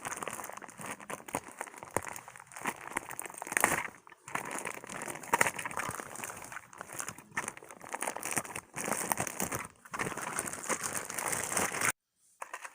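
Plastic toy packaging being handled and opened, with continuous irregular crinkling and crackling, cutting off suddenly near the end.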